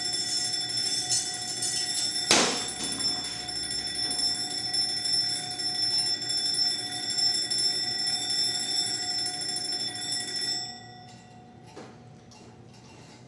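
Alarm clock ringing steadily, with a single loud knock a couple of seconds in. The ringing cuts off near the end, leaving a couple of faint clicks.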